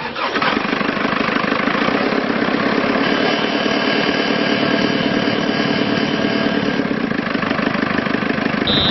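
The diesel engine of a 2012 JCB 3CX-14 backhoe loader starts right at the beginning, then runs at a steady idle. A high steady warning tone sounds near the end.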